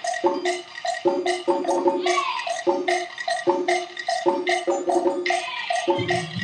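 Traditional Vietnamese water-puppet music: a steady beat of wooden knocks, about two to three a second, under repeating plucked or struck notes with occasional sliding tones.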